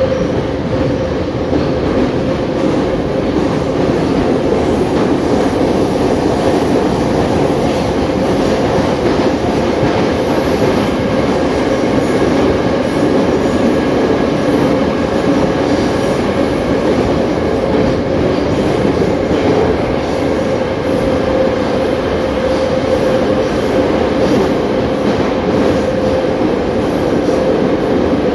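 Inside an 81-717.5/714.5 "Nomernoy" metro car running at speed through a tunnel: a steady rumble of wheels on the rails with a constant hum.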